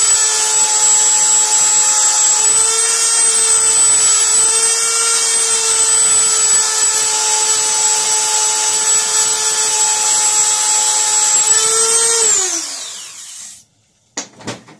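Small high-speed rotary tool (mini drill) running with a steady high whine, dipping slightly in pitch now and then as it grinds down the wafers of a blank car door lock cylinder to match the key. About twelve seconds in it is switched off and the whine falls in pitch as it spins down, followed by a couple of light clicks.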